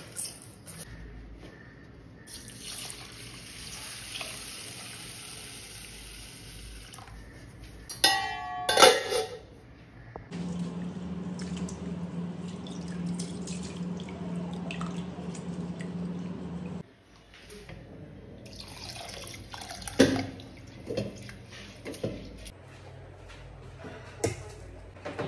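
Water running from a kitchen tap into a steel pot while grains for idli batter are rinsed and swished by hand, with loud splashing about eight seconds in. A steady low hum of running water cuts off suddenly, and a few knocks of the steel pot follow near the end.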